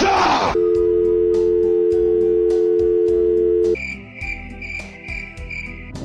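A brief garbled voice cuts off into a telephone dial tone, two steady tones held for about three seconds that stop abruptly. A cricket-chirping sound effect follows, pulsing about three times a second, over faint music.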